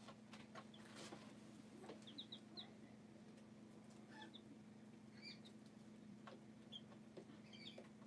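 Young chicks peeping faintly: a quick run of four high peeps about two seconds in, then scattered single peeps. Soft clicks over a steady low hum.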